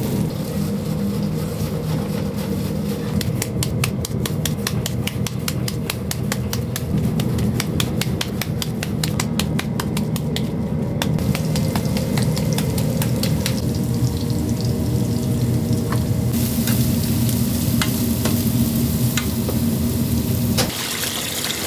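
Minced-meat mixture being stirred and worked with a spatula in a steel bowl, quick repeated clicks and slaps, then meat patties sizzling in oil in a frying pan, the sizzle louder in the last few seconds. A steady low hum runs underneath and stops shortly before the end.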